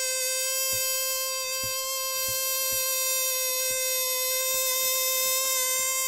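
Funny balloon sound effect: a balloon squealing steadily as air is let out through its stretched neck, one unbroken held pitch, with faint soft knocks underneath.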